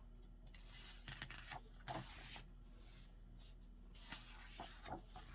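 Faint paper rustling from photobook pages being handled and turned, in a few short soft brushes.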